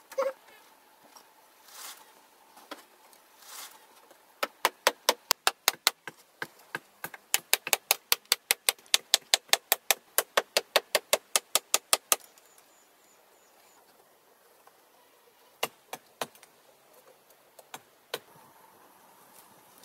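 Hand-tool work: a fast run of sharp taps, about five a second, for several seconds, then a few scattered knocks near the end.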